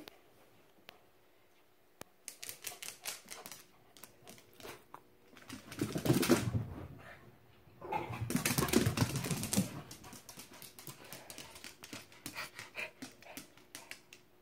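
Corgis' claws clicking and skittering on a vinyl kitchen floor as they run, in quick runs of ticks. Twice, around six and nine seconds in, louder close rubbing and bumping drowns them out.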